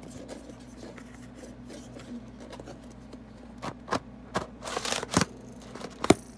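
Collapsible plastic camping stool being twisted back together by hand: light rustling, then a run of sharp plastic clicks and scrapes from about three and a half seconds in, with the loudest snap near the end as its sections clasp together.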